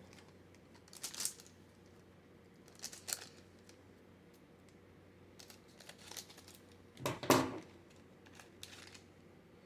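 Trading card pack wrapper crinkling and tearing as it is opened, in a few short rustles, the loudest about seven seconds in.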